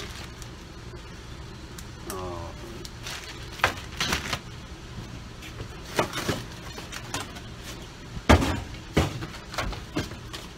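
Knocks, clicks and rattles of accessories and packaging being handled during an unboxing, at irregular moments, with the loudest knock a little after eight seconds in.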